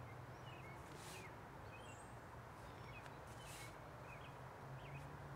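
Faint outdoor ambience with small birds chirping now and then in the distance, and a couple of soft brushing hisses, about a second in and midway.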